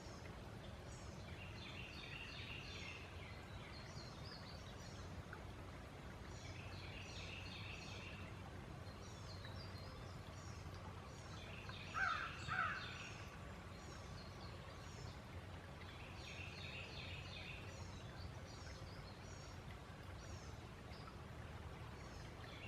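Birds calling outdoors: groups of short, high chirps come in repeated bursts, and two louder, lower calls sound in quick succession about twelve seconds in. A steady low hum runs underneath.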